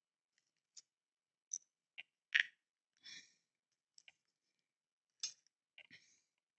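Small screws and a screwdriver being handled over the kit parts: scattered short clicks and light rustles, the loudest about two and a half seconds in.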